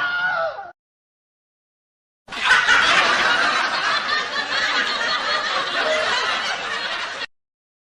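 Crowd laughter sound effect, laugh-track style: many people laughing together for about five seconds, then cut off abruptly. A short separate clip ends in the first second, before a gap of silence.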